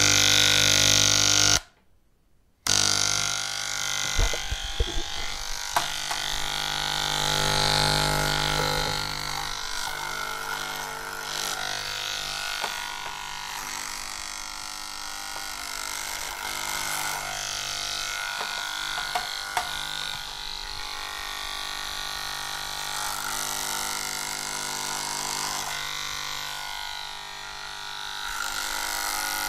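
Electric hair clippers buzzing as they shave a head: a steady motor hum with crackling as the blades pass through the hair. The sound drops out for about a second near the start, then resumes.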